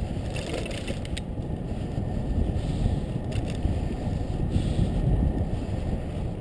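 Wind rumbling on a bicycle-mounted camera's microphone while riding. A short clatter of clicks comes about half a second to a second in as the bike rolls over a railroad crossing.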